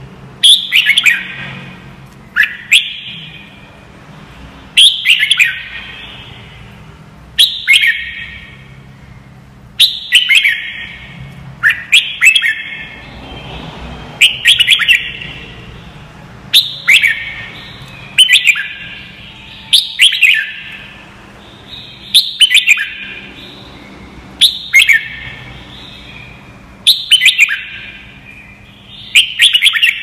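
Red-whiskered bulbul singing: short, loud phrases of quick whistled notes, repeated about every two seconds.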